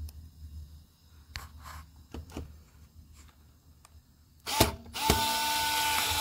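Faint clicks and taps of small parts being handled, then a power screwdriver starts with a brief burst and runs at a steady whine for about two seconds, driving the last screw into the robot's wheel assembly.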